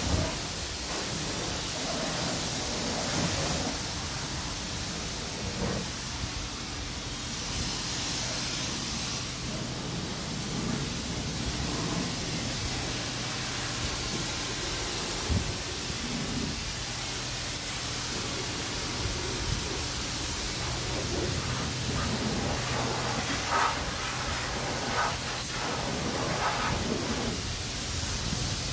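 Steady hiss of a self-service car wash bay's spray equipment, with a low hum through the middle and a few light knocks in the second half.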